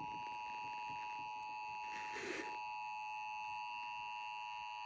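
Emergency Alert System two-tone attention signal, the 853 Hz and 960 Hz tones sounding together as one steady, unbroken alert tone.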